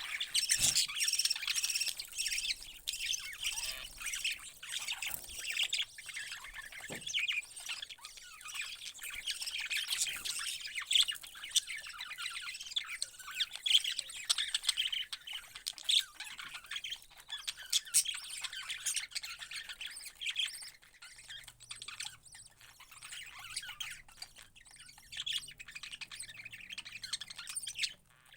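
Parrots calling: many short, high chirps and squawks overlapping, busiest in the first half and thinning out toward the end.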